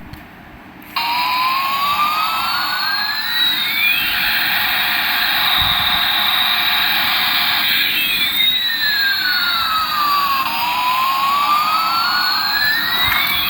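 Electronic jet-engine sound effect from a toy Airbus A380 airliner: a steady hissing rush that starts about a second in, with a whine that slowly rises, holds, falls, and then rises again.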